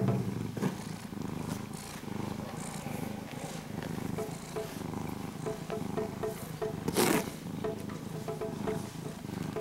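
Domestic cat purring steadily while being stroked, over background music with a repeating pattern. A brief rustle about seven seconds in.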